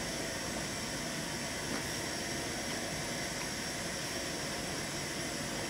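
Steady, even hiss with no breaks or changes.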